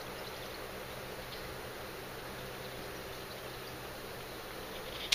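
Quiet outdoor ambience: a steady soft hiss under a faint low hum, with a few faint, short, high ticks scattered through it.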